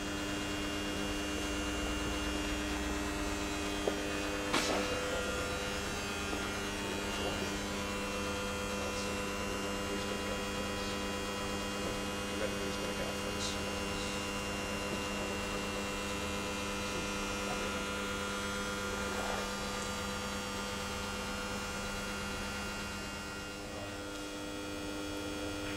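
Steady electrical mains hum made of several fixed tones, with a few brief clicks, the clearest about four and a half seconds in.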